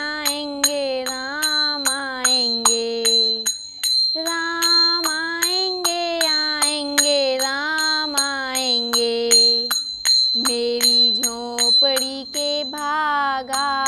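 Devotional bhajan music between sung lines: a melodic lead with bending notes over a steady ticking beat and a high ringing tone. The lead breaks off briefly twice.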